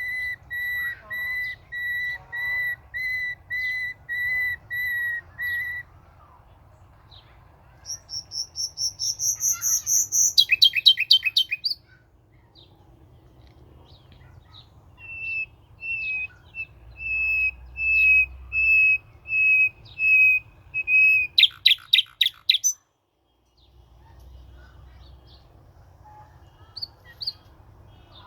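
A bird calling in clear whistled notes. It repeats a steady note about twice a second, then gives a fast series of higher notes that ends in a quick trill. It then returns to repeated steady notes, closing with a short burst of rapid sweeping notes, after which only faint background is left.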